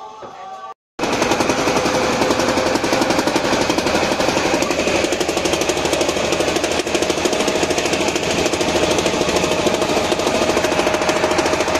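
Small wooden river boat's engine running steadily at speed, a loud, rapid, even firing beat. It cuts in abruptly about a second in.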